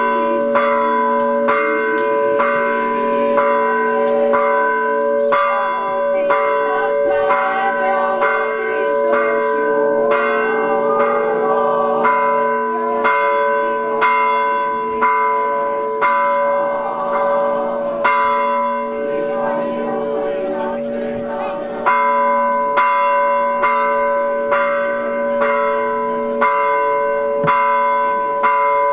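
Orthodox church bells pealing: higher bells struck in a steady rhythm, about one and a half strikes a second, over the lingering ring of deeper bells.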